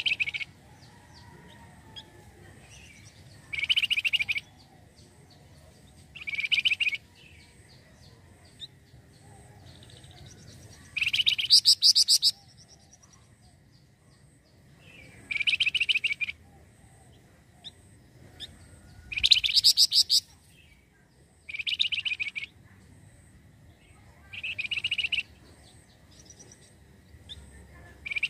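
A flamboyan songbird sings short, fast chattering trills of rapidly repeated high notes, each lasting about a second and repeated roughly every three seconds.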